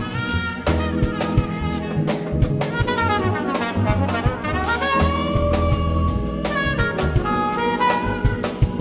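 Live jazz band: trumpet playing the lead line over drum kit, bass and keyboards. The trumpet plays a quick run of notes, then holds one long note about halfway through.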